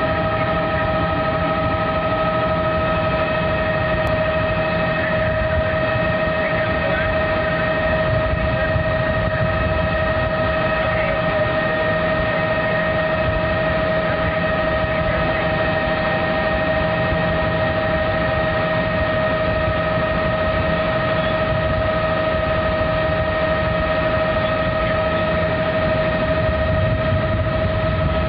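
Helicopter in flight, heard from inside the cabin: a steady whine made of several fixed high tones over a constant low rotor rumble.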